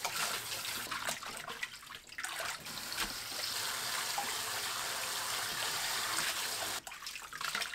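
Cold tap water running into a stainless steel bowl while hands swish blanched chamnamul greens through it to rinse them. The sound of the water stops sharply near the end.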